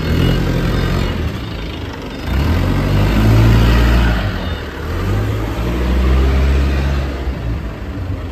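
Engine of a 3-ton HELI counterbalance forklift running, revving up twice as it works.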